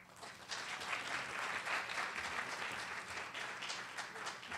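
An audience applauding with many hands. The clapping starts just after the beginning, holds steady and dies away near the end.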